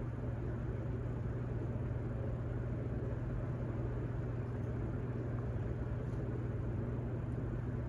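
Steady low hum with an even background hiss of room noise, unchanging throughout.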